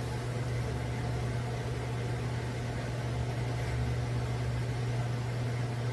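Steady low machine hum with a faint even hiss.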